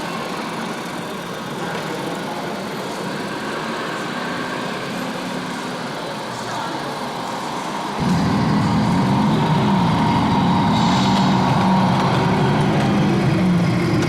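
Background noise of a busy crowd with model vehicle engine-like sound. It jumps abruptly louder about eight seconds in, with voices and wavering motor tones.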